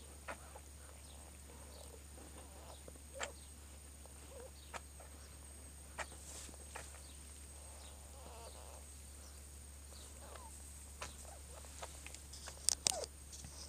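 Faint, scattered small squeaks and clicks from a calico mother cat and her newborn kittens in the nest, over a steady low hum. A few sharper clicks come near the end.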